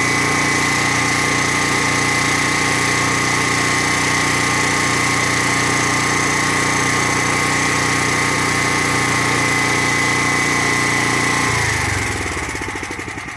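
DuroMax dual-fuel portable generator running steadily with no load. About eleven and a half seconds in it is shut off, and its engine note falls as it winds down to a stop.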